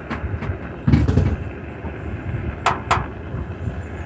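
Steady background rumble with a louder low surge about a second in, and two sharp taps in quick succession close to three seconds in, as the gas-heated soldering iron works solder onto the sheet-metal flashing corner.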